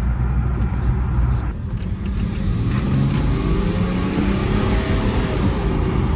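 BMW X5 with a 3.0-litre turbo-diesel straight-six, just fitted with new timing chains, being driven. The engine note rises as it accelerates about four seconds in, then eases off near the end.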